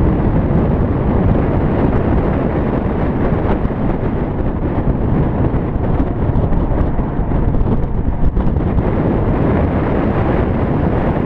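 Heavy wind buffeting on the microphone of a camera mounted on the outside of a car at track speed, over engine and road noise.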